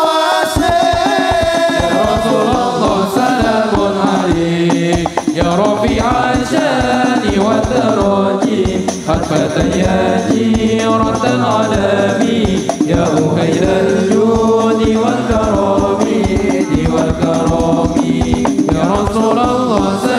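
Sholawat devotional singing: male voices chanting a melody into microphones over fast, steady percussion that comes in about half a second in.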